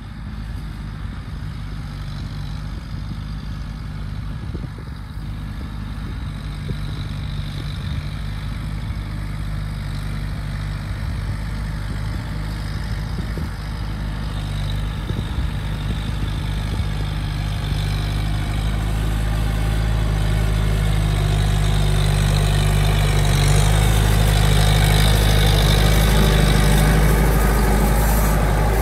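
Kubota M7040 tractor's four-cylinder diesel engine running steadily under load as it drives a rotary tiller through wet paddy soil. It grows steadily louder as the tractor comes close, with the tiller's churning noise rising near the end.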